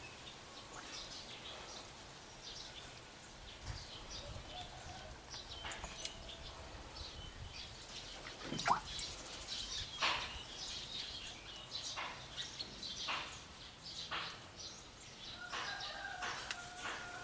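Birds chirping and calling in the background: scattered short chirps, with a few longer held calls near the middle and end. A handful of short sharp sounds come in the second half.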